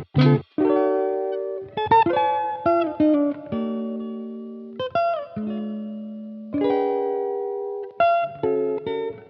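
Background music: a solo guitar picking single notes and chords, each note ringing out and fading, some with slight bends.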